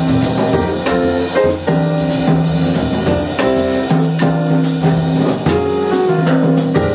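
Jazz piano trio playing: grand piano chords over upright bass, with a drum kit and cymbals played with sticks.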